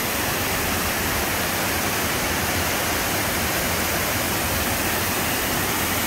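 A waterfall over 30 metres high in full winter spate after a week of rain, water crashing down rock ledges in a steady, loud rush.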